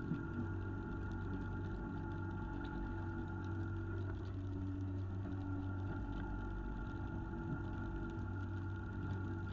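Fishing boat's engine running steadily, an even low drone with a steady higher hum over it.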